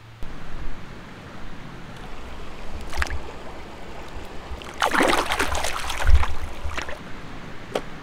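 Creek water splashing and sloshing, with a brief burst near three seconds in and a louder stretch of about a second and a half around five seconds in, over low rumbling on the microphone.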